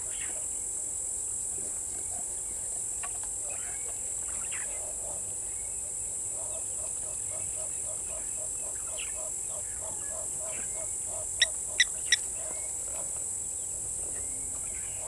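Bushveld ambience: insects buzzing steadily with birds calling, one of them in a steady run of short notes about three a second. About eleven and a half seconds in come three short, sharp high chirps, the loudest sounds.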